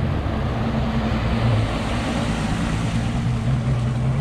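Boat's outboard motor running steadily at a constant pitch.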